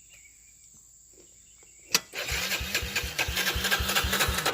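Yamaha TT-R110 trail bike engine being cranked on its starter in a failed start attempt. A sharp click about two seconds in is followed by a couple of seconds of rhythmic cranking, roughly four to five pulses a second, that never catches and stops.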